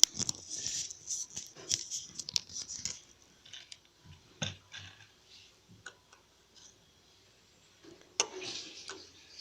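Slime being squeezed and kneaded by hand, making dense crackly, squelching pops for about three seconds, then scattered single pops, with another sharp squelch near the end.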